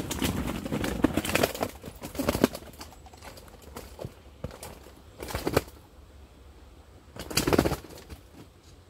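Live fish flapping and water sloshing in a wet weigh sling hanging from the scales. There is a rush of splashing and slapping for the first few seconds, then two shorter bursts of flapping.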